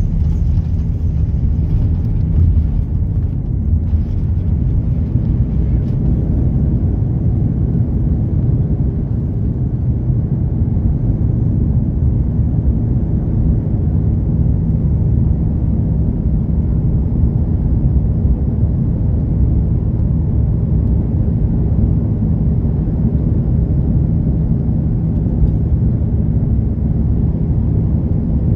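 Airbus A330-300 cabin noise: a steady, loud low rumble of the engines and airflow heard from inside the passenger cabin, with a faint high whine above it.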